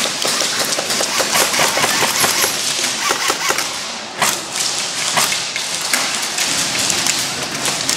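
Airsoft guns firing in a game: a dense, irregular run of sharp clicks and pops over a steady hiss, with two louder knocks about four and five seconds in.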